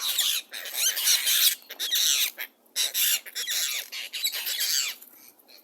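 A flock of noisy miners ("Noisy Jacks") giving rapid, harsh squawking and chattering calls as they crowd in for bread. There is a short pause in the calling about halfway through, and the calls die away near the end.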